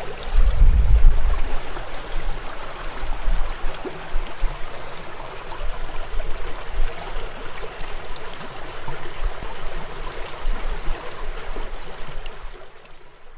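Water flowing in a small forest stream: a steady rush with low rumbles, loudest about a second in. It fades away near the end.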